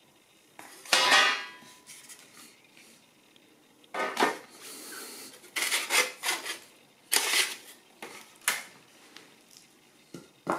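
Thin 1 mm steel plates being handled and stacked: a series of metallic clanks, scrapes and rattles, the loudest about a second in, with a brief ring. A short knock near the end as a wooden block is lifted.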